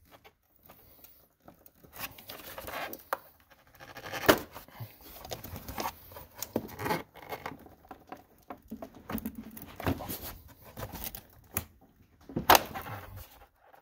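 Lower half of a car's plastic air filter housing being worked loose and pulled up out of the engine bay: irregular plastic knocks, clicks and scraping, with a louder clack about four seconds in and another near the end.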